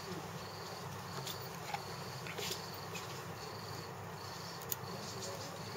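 Cricket chirping: short high chirps repeating a little faster than once a second, over a low steady hum, with a few faint clicks.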